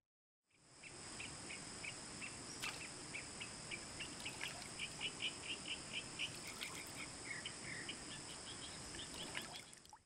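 Insects droning steadily and high, with a quick run of short, high chirps, about four a second, loudest midway; the sound fades in just after the start and fades out near the end.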